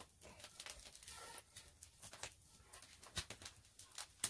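Open wood fire crackling, with scattered sharp pops and ticks, the loudest near the end. About a second in there is a short airy rush as the fire is fanned with a board.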